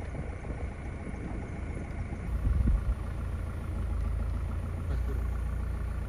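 Maruti Gypsy safari jeep's engine idling with a steady low rumble, with a brief rise in level between two and three seconds in.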